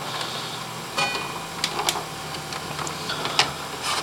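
Scattered clicks and light scrapes of a hard drive being worked out of a Drobo storage enclosure's drive bay, over a faint steady low hum.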